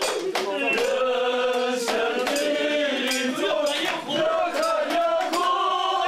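A group of men singing together in chorus, several voices holding long notes, with sharp strikes scattered through the song.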